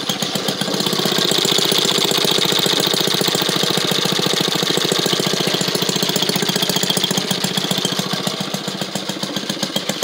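Vintage Maytag washing machine's small two-stroke gasoline engine running steadily in a fast, even putter, driving the agitator through a load of wash water.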